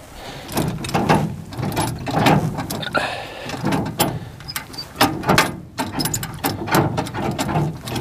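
Irregular metal clunks and clicks as the freshly reworked gear shift lever on an old hay truck's cab floor is worked by hand.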